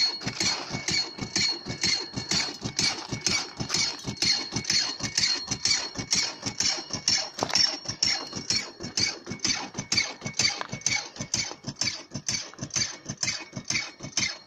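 Gold dry washer puffing in a rapid, regular rhythm of about three or four pulses a second as dirt is run over its riffle tray, with a faint steady high whine underneath.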